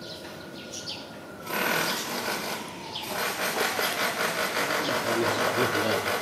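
Tabby cat purring close to the microphone: a fast, even, rhythmic rumble that starts about a second and a half in and runs in two long stretches, with a short break near three seconds.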